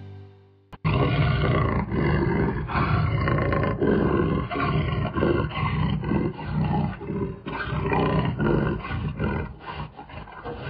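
Closing music fades out, then a big cat starts roaring and growling abruptly about a second in, in a run of repeated roars.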